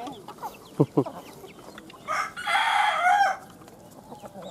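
A rooster crows once, about two seconds in, for a little over a second, among scattered clucking and the light tapping of chickens pecking feed from a dish. Two dull thumps sound about a second in.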